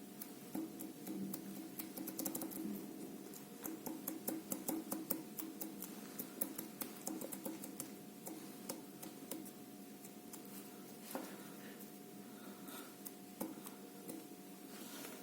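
Faint, quick clicks and scraping as a corroded inner steering tie rod joint is handled and worked by hand. The clicks are thickest in the first two-thirds and thin out after. The joint has play.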